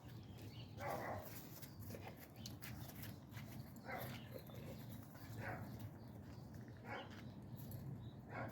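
A dog barking faintly, five single short barks spaced about a second and a half apart.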